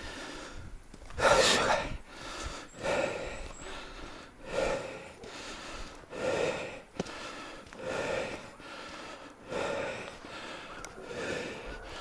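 A person breathing hard and rhythmically, one loud breath about every second and a half.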